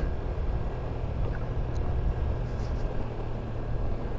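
Honda Vario 125 scooter riding steadily along a rough concrete lane: a steady low rumble of its single-cylinder engine and the tyres on the road.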